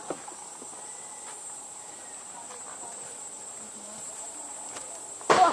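Steady, high-pitched drone of rainforest insects. A short, loud burst, the loudest sound here, cuts in about five seconds in.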